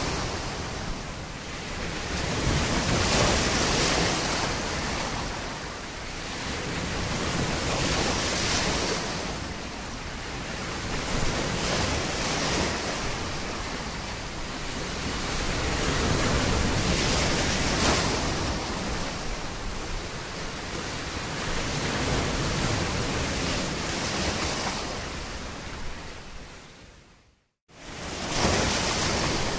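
Sea waves rolling in, a slow swell about every five seconds. Near the end the sound fades out to brief silence and comes back abruptly.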